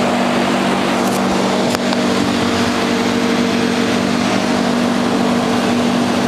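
Refrigerated slush and drink machines running: a steady machine hum with an even fan-like hiss, unchanging throughout, with two light clicks between one and two seconds in.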